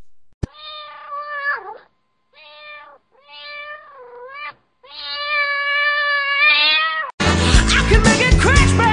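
Domestic cat meowing four times, the last meow the longest. Near the end, loud music with roaring cuts in.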